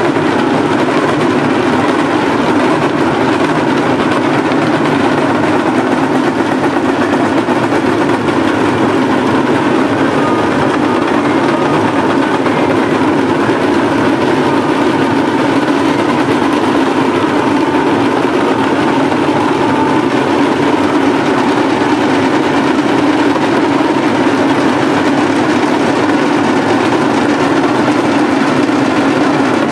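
Steady, unbroken din of a very large outdoor crowd, with no single voice standing out.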